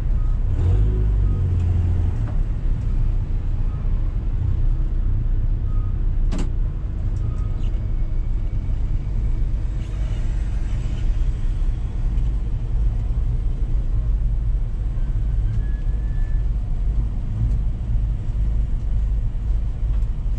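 Renault Megane 3 RS's turbocharged 2.0-litre four-cylinder engine idling, a steady low rumble heard inside the stripped, roll-caged cabin. A single sharp click a little after six seconds in.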